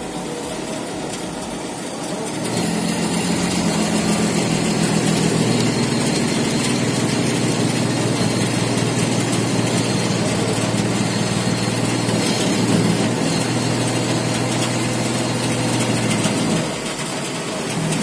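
Forklift engine revving up about two and a half seconds in and holding steady under the load of a heavy air compressor on its forks, then dropping back near the end.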